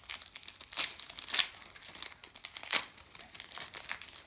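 A trading-card packet wrapper being torn open and crinkled by hand: a string of sharp crackling rustles, the loudest about one and a half seconds in and again near three seconds.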